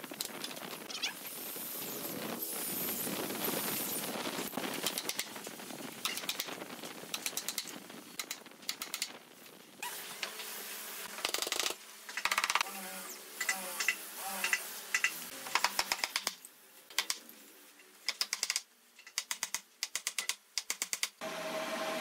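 Pneumatic brad nailer firing into a wooden frame: sharp clacks, often in quick runs of several shots a second.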